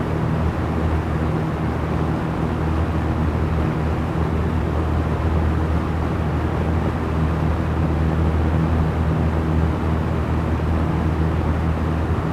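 Small electric fan running steadily: an even rush of air over a low, constant motor hum.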